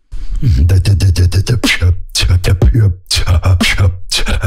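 Beatboxer's inward bass beat. Deep buzzing bass notes, each about half a second long, alternate with sharp click and snare sounds in a steady rhythm.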